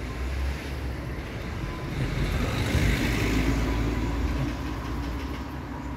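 Road traffic: a passing vehicle swells to its loudest about halfway through and then fades, over a steady low rumble.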